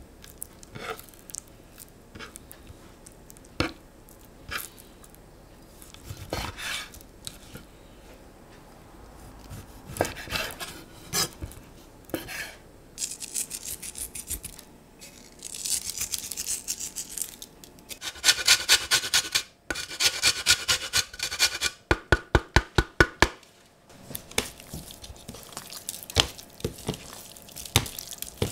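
Close-up food-preparation sounds. First comes a knife cutting raw chicken breast on a wooden board with scattered knocks, then sea salt flakes sprinkled with a crackly hiss. A lemon follows, grated for zest in fast rasping strokes, and the chicken strips are rubbed and handled in a metal tray near the end.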